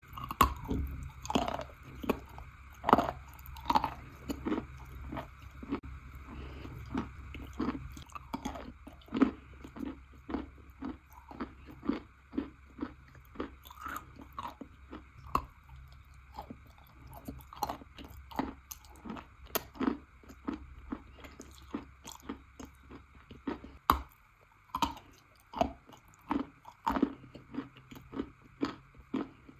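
A person biting and chewing chunks of wet chalk close to the microphone: many separate crisp crunches, one or two a second, with a steady low hum beneath that stops about 24 seconds in.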